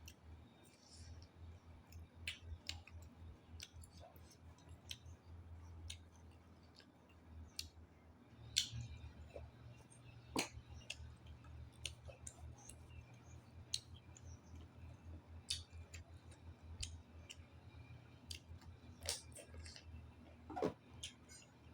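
Close-up eating sounds, faint: chewing with scattered sharp mouth clicks and smacks, a few louder ones, over a steady low hum.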